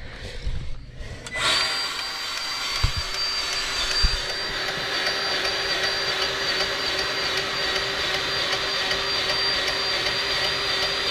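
Milwaukee cordless grease gun running on its low setting, its motor whining steadily for about ten seconds as it pumps grease into a kingpin grease fitting on the truck's front axle. The whine starts about a second and a half in and cuts off near the end.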